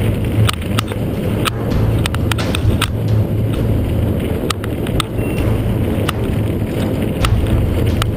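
Mountain bike riding fast down a dirt and gravel track: a steady rumble of wind on the microphone and tyres on the ground, with frequent sharp rattles and clicks as the bike jolts over bumps.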